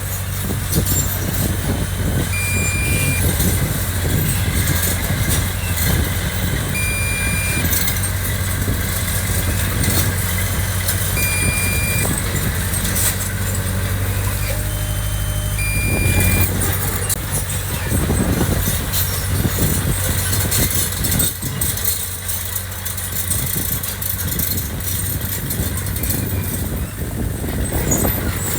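Heavy diesel earthmoving machinery running steadily, with a change in engine note partway through. Short high beeps sound now and then.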